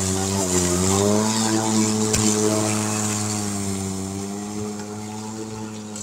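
PowerSmart 80-volt electric push mower running with its blade cutting through tall, heavy weeds: a steady motor hum whose pitch wavers during the first second or so, then steadies. One sharp tick about two seconds in, and the hum fades as the mower moves away.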